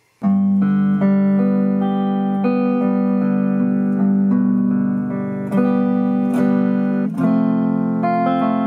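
1968 Guild X175 Manhattan hollow-body electric archtop guitar played with a pick. Chords ring out, with a new chord struck about every second or so, in the warm, chimey tone of its pickups. The playing starts a moment in.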